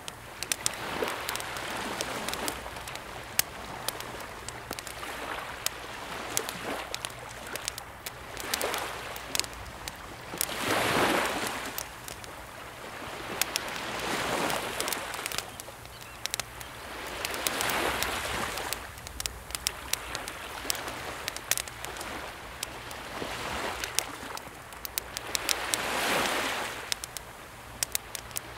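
Small, calm sea waves swelling and washing in every few seconds, with a wood campfire crackling in frequent sharp clicks over them.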